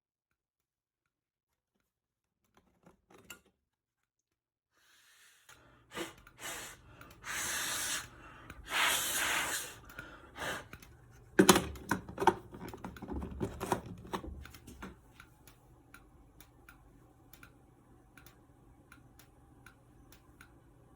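Two hissing blasts of air, about a second each, blown into a smoke detector to clear out the test smoke, followed by clicks, a sharp knock and handling noises.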